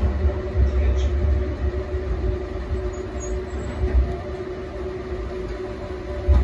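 Yarra Trams A2-class tram rolling slowly along its track, heard from inside: a low running rumble with a steady hum over it.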